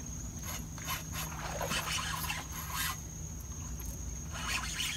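Faint, irregular scraping and clicking from a fishing reel and rod being worked while a hooked snook is fought on the line.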